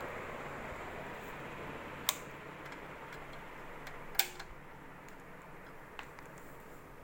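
Ceiling fan's steady airy hiss, slowly fading, with a few sharp isolated clicks about two seconds apart.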